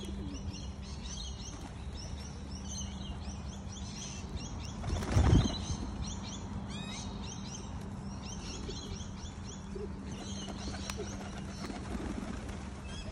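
Small birds chirping in quick series of short, high notes, with a brief burst of low rushing noise about five seconds in.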